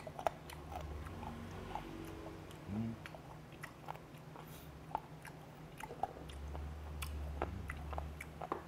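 A person chewing a mouthful of fermented skate (hongeo) with the mouth closed, with many small wet clicks and crunches, picked up close by a lapel microphone.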